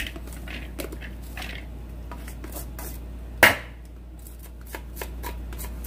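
Stainless-steel mesh strainer knocking and scraping against a glass mixing bowl as drained grated potato is tipped out of it: a scatter of small clicks and taps, with one sharp knock about three and a half seconds in.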